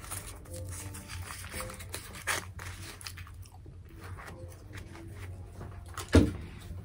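A piece of chewing gum pushed out of its plastic-and-foil blister pack with small clicks and crinkles, then bitten and chewed. A single loud knock comes near the end.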